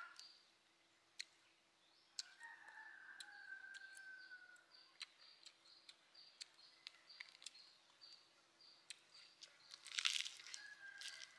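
A rooster crows once, a long call falling slightly in pitch, over repeated high chirping of small birds. About ten seconds in comes the loudest sound: a crunch as a bite is taken from a lettuce wrap of crispy fried prawns.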